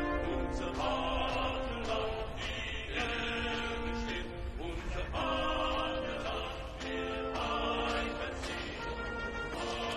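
Film score with a choir singing long held chords that change every second or two, over a steady low rumble.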